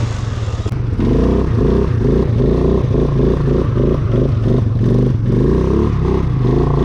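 Suzuki Vinson 500 ATV's single-cylinder engine revving up and down unevenly as it is ridden hard off-road, with the machine clattering.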